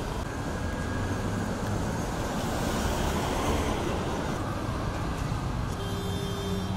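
Steady road traffic noise: the hum of passing cars and three-wheelers, with a short steady tone about a second before the end.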